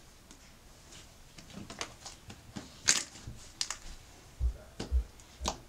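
Cream cheese slime being pressed, poked and stretched by hand: a scatter of sticky clicks and small crackling pops, with a few soft dull thumps in the second half as it is pressed down onto the table.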